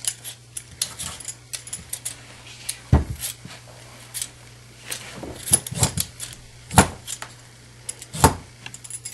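Potatoes being peeled and handled on a kitchen counter: irregular clicks and light scrapes, with a few louder knocks.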